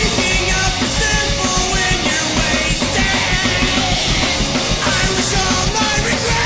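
Post-hardcore rock song playing: a full band with electric guitars and a drum kit, loud and steady throughout.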